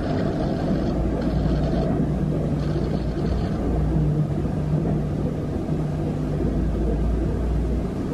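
A woman in labour breathing through a contraction, blowing out through pursed lips, over a steady low rumble.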